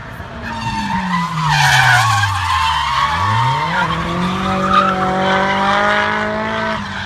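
A drift car sliding with its tyres squealing. Its engine revs fall away over the first few seconds, then climb quickly and are held high and steady, dropping off just before the end.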